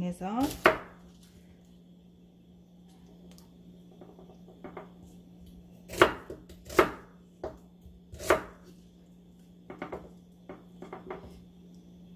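Kitchen knife cutting an onion into chunks on a wooden cutting board. A few separate sharp knocks of the blade meeting the board, the loudest about six seconds in, just before seven and past eight, with a cluster of lighter taps near the end.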